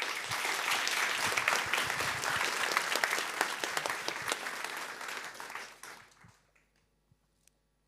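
Audience applauding at the end of a conference talk. The applause starts at once, holds for about five seconds, then dies away.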